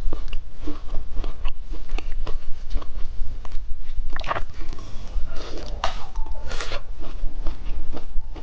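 Close-miked biting and chewing of a chocolate ice cream bar, with repeated crisp crunches, a few of them louder about four to seven seconds in.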